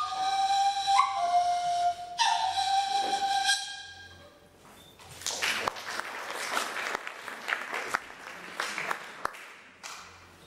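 A small folk flute plays a few held notes stepping down in pitch, ending its phrase about four seconds in. Then audience applause with scattered claps, dying down near the end.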